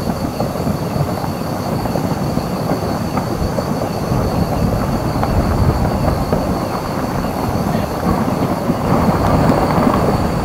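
Continuous low rumbling of a pyroclastic flow, an avalanche of hot rock and ash pouring down the flank of Merapi volcano.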